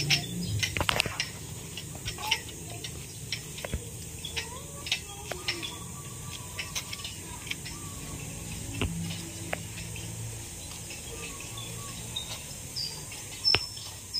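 Footsteps on a paved path, heard as light irregular clicks and scuffs over a low outdoor murmur, with a few faint bird chirps near the end.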